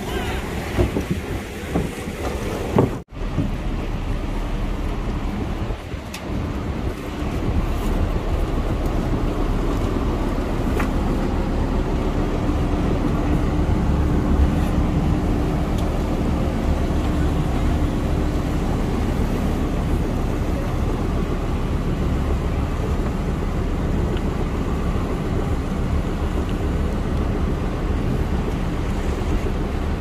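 Steady rushing water and the low hum of a boat's engine, with wind buffeting the microphone; the sound drops out for a moment about three seconds in.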